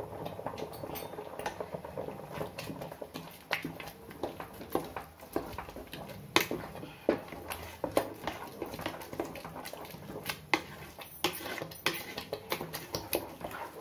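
Wooden spatula stirring and scraping a thick, bubbling coconut-and-sugar halwa mixture in a metal pot, with irregular clicks and knocks against the pot.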